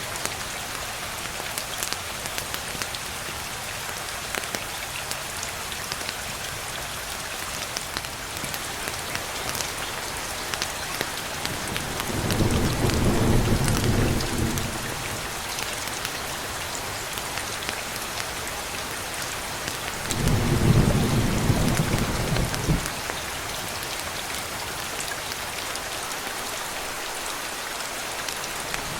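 Steady rain falling, with two low rumbles of thunder, one about twelve seconds in lasting some three seconds and a second, slightly louder, about twenty seconds in.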